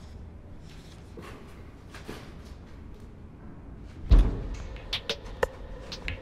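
Quiet stairwell room tone, then a single heavy dull thump against a metal apartment door about four seconds in, followed by a few sharp clicks.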